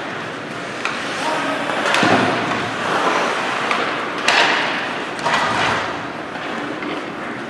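Ice hockey game in a rink: a steady scrape and hiss of skates on the ice, broken by several sharp knocks of sticks and puck against the ice and boards, with faint voices in the echoing arena.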